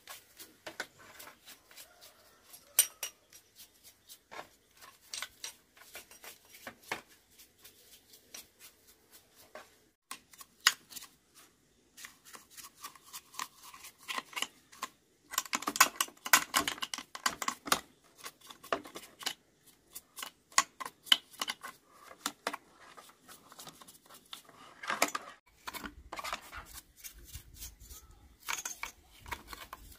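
A stiff paintbrush scrubbing dirt off a chainsaw's engine and cylinder cooling fins, in scratchy spells with scattered clicks and taps of plastic and metal parts being handled. The scrubbing is densest a little past the middle.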